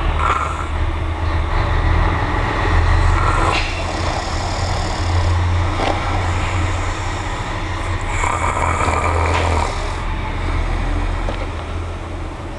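A man snoring in his sleep, a deep snore on each breath, about every three seconds.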